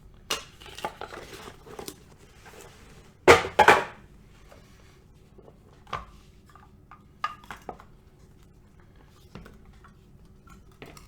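Cardboard trading-card box and card packaging being handled on a table: scattered taps and knocks with light rustling, and a louder burst of rustle and clatter about three seconds in.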